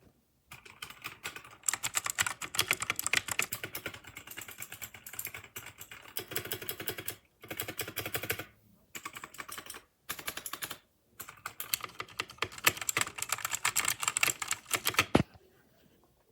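Fast typing on a mechanical keyboard: dense runs of key clicks, broken by a few short pauses, with a single sharper click near the end.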